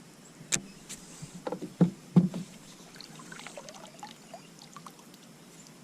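Knocks and thumps on a plastic pedal kayak as a bass is landed and handled aboard: a few sharp hits in the first couple of seconds, the loudest about two seconds in, then only faint rustling.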